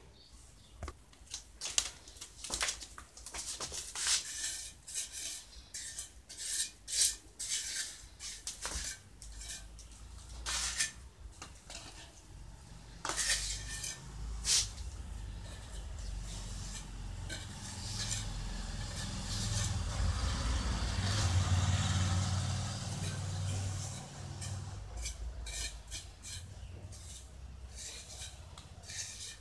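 Pointed steel trowel scraping and tapping on wet cement mortar in short, irregular strokes. Midway a steady low rumble swells and fades.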